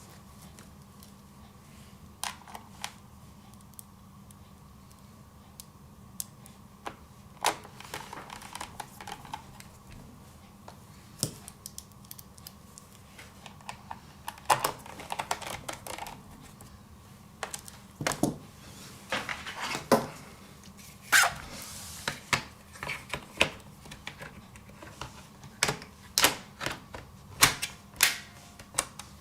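Irregular light clicks and taps of a laptop being handled, over a faint steady hum. The clicks come more often in the second half.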